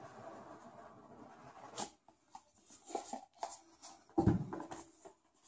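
Cardboard packaging box being opened: a steady papery rubbing as the tray slides out of its lid, then a few light taps and a dull thump about four seconds in as the box is set down.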